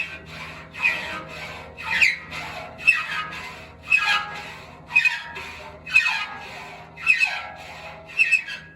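Hand file stroking across the steel face of a sawmill saw tooth, about one stroke a second for nine strokes, each a squealing rasp that slides down in pitch. The teeth are being sharpened with a little lead filed into them.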